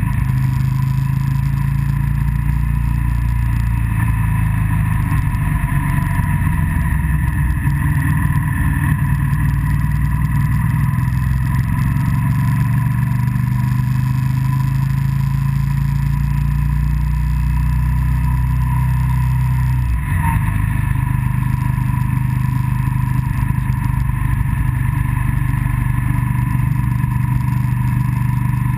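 Motorcycle engine running steadily under way on a climbing road, with one brief sharp drop in engine note about two-thirds of the way through, as at a gear change.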